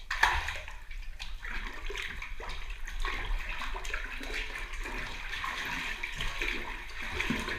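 Bathtub water rushing and splashing, starting suddenly just after the start and running on steadily, as a LEGO Technic catamaran model is set on the water to test whether it floats.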